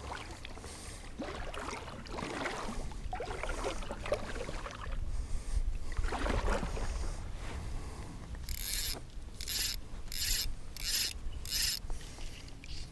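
Fly reel clicking as line is pulled off it, with handling and rubbing at first, then five quick rasping pulls in a row near the end.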